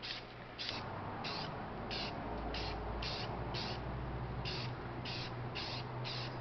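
Spray paint hissing in short bursts, about two a second, as a coat of paint goes on, with a steady low hum underneath from under a second in.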